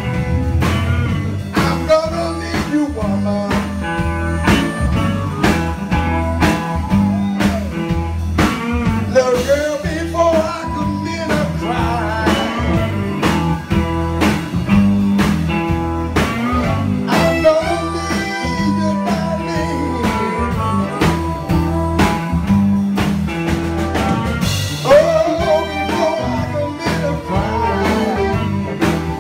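Live electric blues band playing an instrumental passage: a lead electric guitar with bending notes over bass and a steady drum beat.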